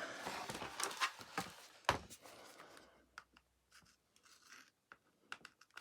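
Scratching and scraping of plastic as a glued-on plastic piece is worked loose from a vacuum cleaner floor head, with sharp clicks about a second in and near two seconds, then only faint ticks.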